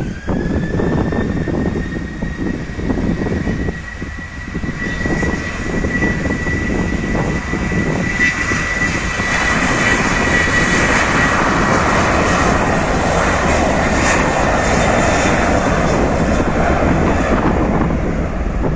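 Jet airliner engines: a high whine that rises at the start and then holds steady, with broad engine noise swelling about halfway through and staying loud. Gusty wind buffets the microphone throughout.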